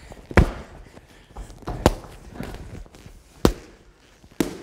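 Boxing gloves smacking as punches land in sparring: four loud, sharp smacks spaced about one to one and a half seconds apart, with fainter knocks of feet shuffling on the foam mat between them.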